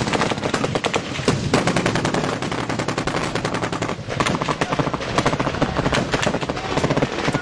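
Heavy automatic gunfire: rifles firing rapid shots one after another with hardly a break, loud.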